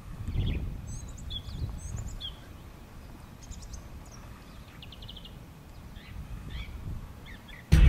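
Wild birds chirping and trilling in bush, short scattered calls over a low rumble. Near the end, soundtrack music cuts back in abruptly and loudly.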